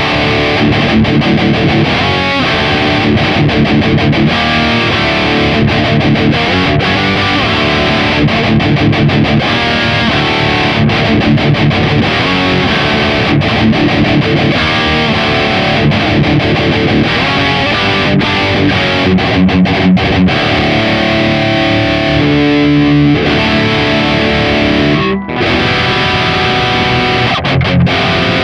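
Distorted electric guitar played through a Mooer Brown Sound preamp (modelled on an EVH 5150 III) on its red channel, riffing without a break apart from a short stop a few seconds before the end.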